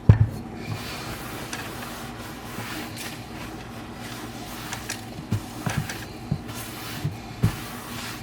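Cleaning up a spill on a kitchen counter: a sharp knock at the start, then rubbing and sweeping with scattered light knocks and clicks, over a steady hiss.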